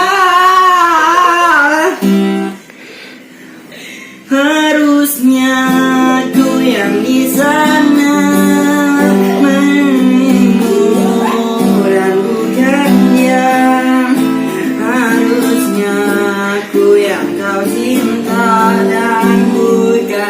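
Acoustic guitar strummed to accompany a voice singing a slow Indonesian pop ballad. A sung note wavers and then breaks off about two seconds in. After a short pause the strumming and singing come back in about four seconds in.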